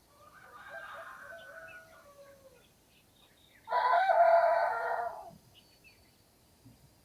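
Two rooster crows: a fainter, more distant one at the start, then a louder, closer one a little past halfway. Small birds chirp faintly in the background.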